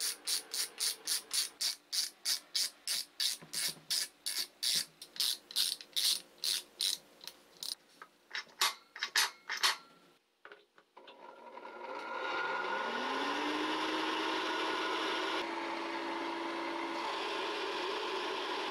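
A ratcheting screwdriver clicks in repeated strokes, about three a second, as a screw is tightened on the blower housing. After a short pause, the 1959 Hokushin Denki electric blower's motor starts: its hum rises in pitch over about a second, then settles into a steady whirr with rushing air.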